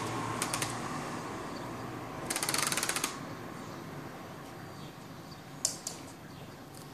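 Light rapid clicking of a kitten's claws scrabbling on a laminate floor as it scampers and pounces, in short runs with the longest a quick patter about two seconds in, and a sharper tap near the end.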